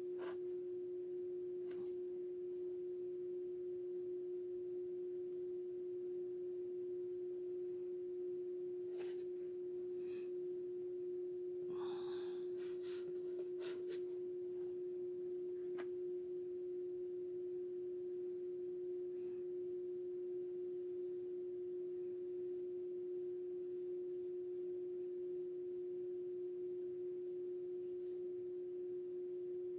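A steady, unchanging mid-pitched tone, like a constant hum, runs under everything, with a few faint clicks and a brief rustle about twelve seconds in.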